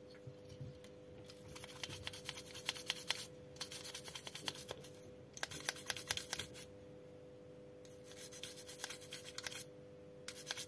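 Toothbrush bristles scrubbing a circuit board to clear flux residue left after desoldering, in about five bursts of quick back-and-forth strokes. A faint steady hum runs underneath.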